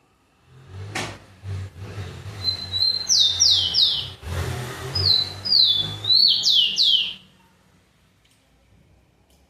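Rufous-collared sparrow (tico-tico) singing two phrases, each a short whistle followed by three clear notes that slide down in pitch. A sharp click about a second in, and a low hum under the song.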